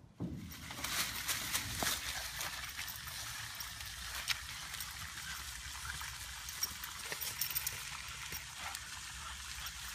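A dog scuffling through dry leaf litter as it attacks a snake: a steady crackling rustle with many scattered sharp clicks.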